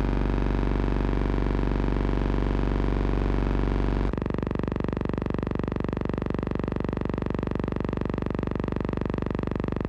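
A deep, steady electronic buzz with many overtones; about four seconds in it switches abruptly to a thinner buzz with a fast flutter.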